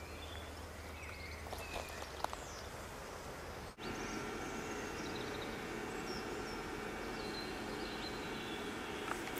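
Outdoor ambience with faint bird chirps and a few small clicks. After a sudden break about four seconds in, a slightly louder, steady hum takes over, with faint chirps continuing.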